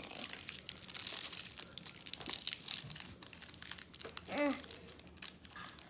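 Small plastic toy-accessory packet crinkling and rustling as it is handled and torn open, in quick irregular crackles.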